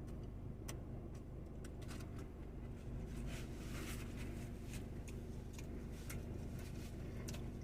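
Close-up chewing of crunchy fried chicken nuggets: faint, irregular crisp clicks and crunches, thickest about three to four seconds in, over a steady low hum.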